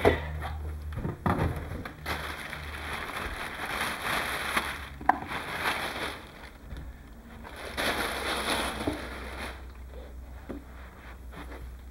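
Crinkling and rustling of plastic packaging wrap being pulled off, with handling noise and a sharp knock about five seconds in.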